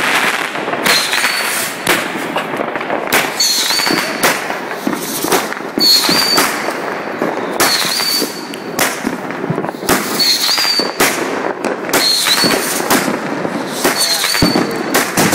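Hooligan consumer firework firing shot after shot, with sharp bangs every second or two over a steady crackle. A short high whistle comes after many of the shots.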